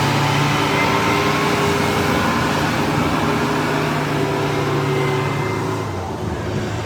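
A vehicle engine running steadily, getting a little quieter near the end.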